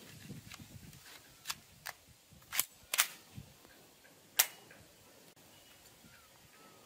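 A plastic toy pump-action shotgun being worked and fired: a string of about five sharp snaps with fainter clicks between, the loudest three in the middle.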